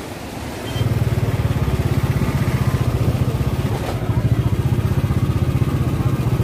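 Motorcycle engine running close by, with a fast, even firing beat; it gets louder about a second in and then holds steady.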